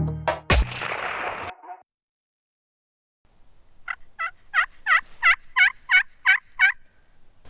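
A run of about ten evenly spaced turkey yelps, roughly three or four a second, lasting nearly three seconds. It follows the last seconds of background music.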